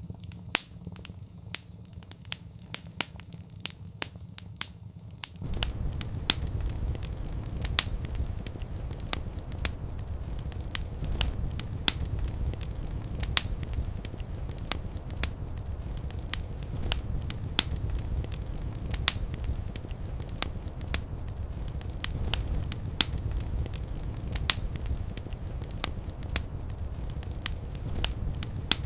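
Fire burning in a fireplace, crackling with sharp pops several times a second. A low, steady rumble of flames comes in about five seconds in and holds under the pops.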